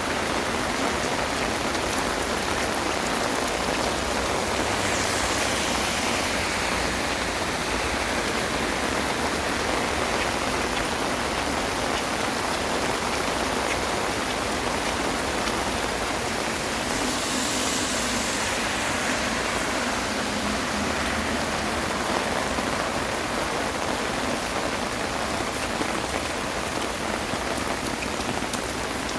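Heavy rain falling steadily, a dense hiss of rain on surfaces. The hiss swells briefly about five seconds in and again around seventeen seconds.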